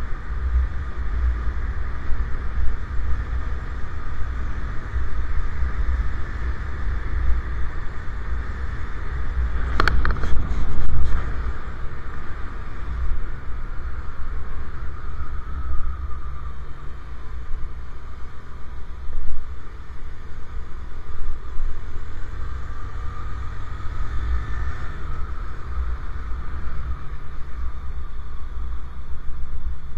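Riding noise from a moving motorcycle: heavy steady wind noise on the microphone over the engine and tyres, with a brief louder burst about ten seconds in.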